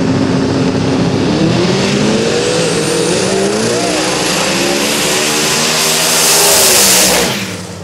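Two old pickup trucks' engines drag racing. They are held at steady revs on the start line, then launch about a second and a half in and climb in pitch with dips at each gear change. They are loudest as one truck passes close by, then cut off suddenly near the end.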